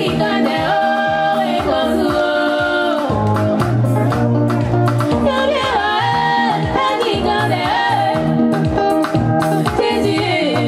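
Live gospel music through a PA: a woman singing lead into a microphone over amplified band accompaniment with bass and a steady beat.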